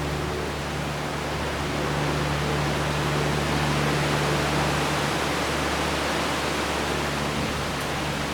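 Wind blowing steadily, an even rushing noise that swells a little around the middle, with a faint steady low hum underneath.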